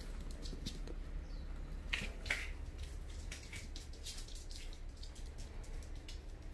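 Dachshund puppy's claws clicking on a laminate floor as it scampers about: scattered light ticks, the loudest pair about two seconds in, over a faint low hum.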